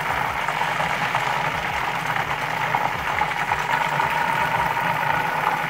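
Food processor running steadily, its blade whipping soft blue cheese and cream cheese together, the motor giving an even whine.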